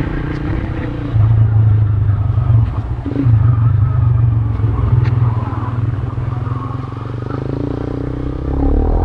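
A motor vehicle's engine running: a loud, steady low rumble that swells about a second in.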